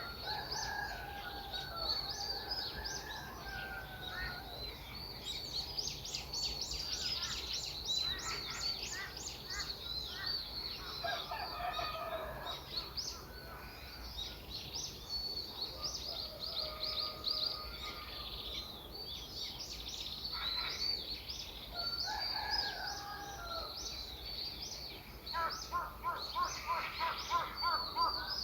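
Several wild birds singing at once, with many overlapping high chirps and trills and some lower whistled phrases. Near the end a quick run of repeated lower notes comes at about five a second.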